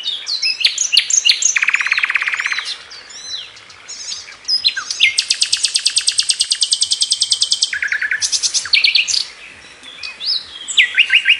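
Nightingale singing: varied phrases of whistles and chirps broken by rapid repeated trills. There is a fast, lower rattle about two seconds in and a long, high, rapid trill from about five to eight seconds.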